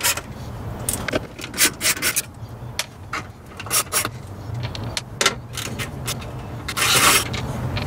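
Hand ratchet clicking and metal tools clinking while the gauge cluster panel screws are backed out, with a short rasping scrape near the end.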